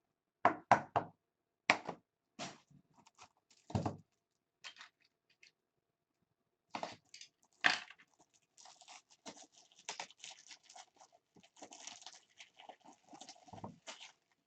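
Trading cards and foil pack wrappers being handled on a table: a few sharp taps and knocks in the first four seconds, then a longer stretch of crinkling and rustling.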